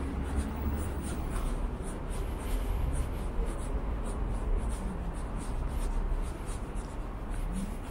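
Footsteps on a paved sidewalk at a steady walking pace of about two steps a second, over a low, steady street rumble.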